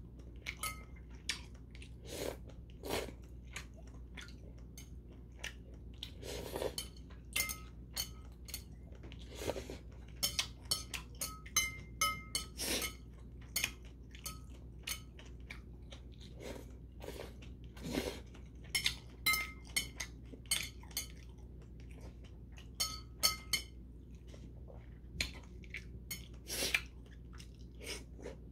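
Chewing and biting on a mouthful of noodles and sea snails, with metal chopsticks clinking against a porcelain bowl: many short sharp clicks, some with a brief ring.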